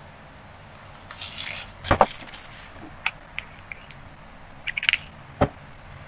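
Kitchen utensils being handled at a table: a short scrape, then two sharp knocks about two seconds in. Light clicks and taps of a plastic spoon and bowl follow, with one more knock near the end.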